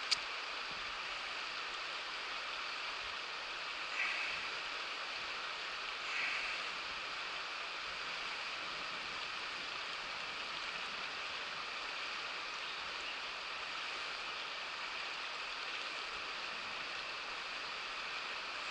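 Shallow river water running steadily over rocks in a riffle, an even rushing babble.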